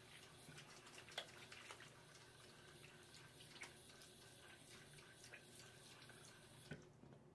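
Faint tap water running into a bathroom sink during handwashing, with small splashes, then a knock as it is shut off near the end.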